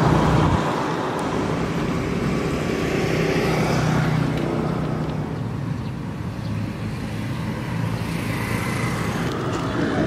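Motor vehicle engine running with outdoor road-traffic noise: a steady low engine hum under a broad haze of road noise.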